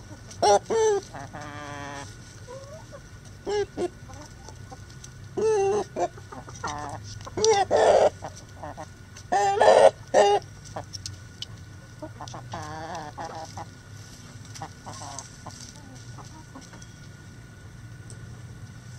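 Chickens clucking and squawking: a string of short, loud calls, the loudest about eight and ten seconds in, dying away to fainter clucks in the second half, over a steady low hum.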